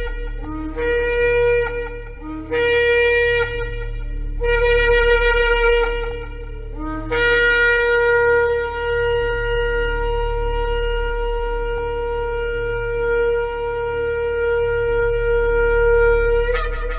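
Shofar (ram's horn) blown: three blasts of a second or two, each starting on a lower note and jumping up to its main pitch, then one long held blast of about ten seconds that ends with a brief upward flare near the end.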